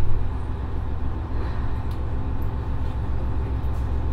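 Komatsu SA6D140HE-2 six-cylinder common-rail diesel engine of a JR Shikoku 1500-series railcar idling steadily with a low throb while the railcar stands still, heard from inside the car. A couple of faint clicks come through.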